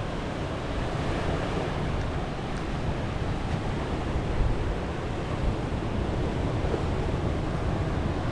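Ocean surf washing steadily against a rocky shore, with wind rumbling on the microphone.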